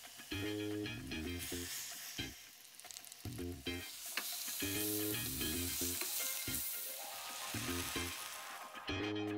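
Marinated cod fillet sizzling in hot oil in a nonstick frying pan. The sizzle grows louder about four seconds in, after the fillet is turned over, and dies away near the end.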